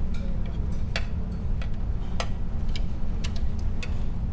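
Steady low rumble of a large ferry's engines and hull vibration heard inside a passenger cabin, with light clicks and ticks every half second to second.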